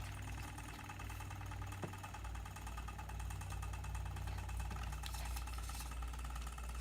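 Electric motor of a buffing wheel running with a steady hum.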